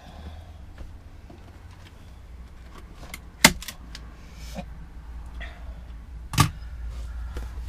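Hand-tool work on an RV wall panel: two sharp knocks about three seconds apart, with small metallic clicks and handling noises between them, over a low steady hum.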